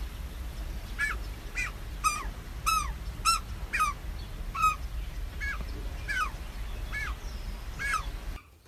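Australian magpie giving about a dozen short calls, each note bending down in pitch, starting about a second in and coming roughly twice a second, over a steady low rumble.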